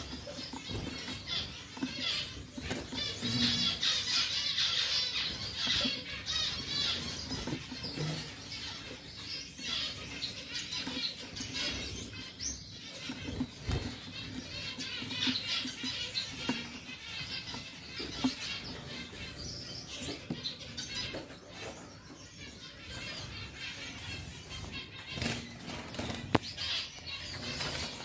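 Gouldian finches fluttering about inside a small plastic bird crate: repeated bursts of wing flapping, with thin high chirping calls.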